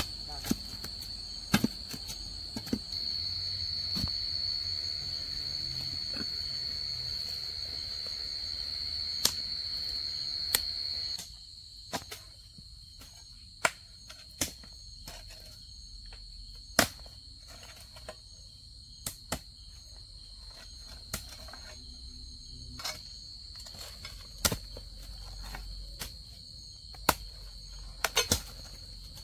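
Insects trilling steadily on one high pitch, louder for the first eleven seconds or so and then softer, with scattered sharp clicks and knocks throughout.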